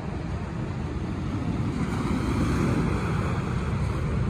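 Ocean surf washing up a sandy beach, a steady rush that swells about halfway through, with wind buffeting the microphone.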